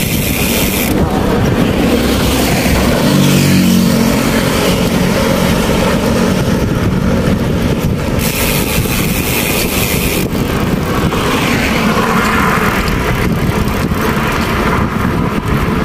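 Motorcycle on the move: steady rush of wind and road noise over the engine's hum, the engine note standing out for a moment about three seconds in.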